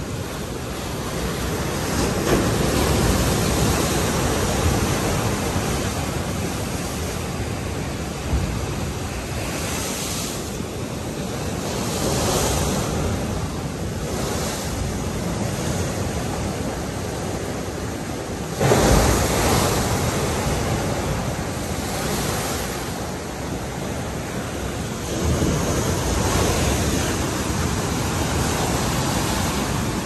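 Heavy king-tide surf breaking and washing against a concrete sea wall, with wind buffeting the microphone. The rush of water swells and falls back every few seconds, and the loudest surge comes suddenly a little past halfway.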